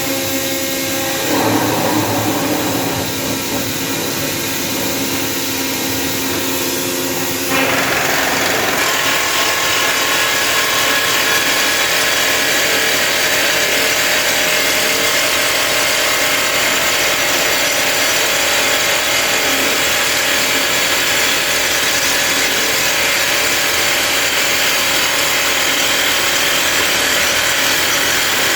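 Atlas Copco Simba S7D long-hole drill rig running with a steady machine hum. About seven and a half seconds in, a louder, harsh drilling noise starts and holds steady: the rig is drilling a long blast hole into rock.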